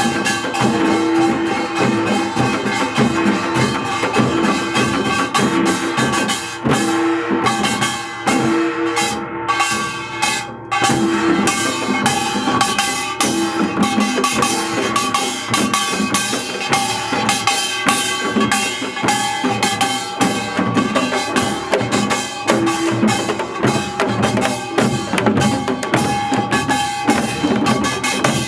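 Music with a drum kit keeping a steady beat over held melodic tones, with a short thinner break about a third of the way through.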